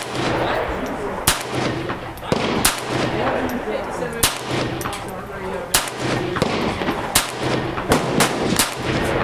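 Smith & Wesson 22A .22 LR semi-automatic pistol fired in slow, aimed single shots, each a sharp crack, spaced roughly a second or more apart.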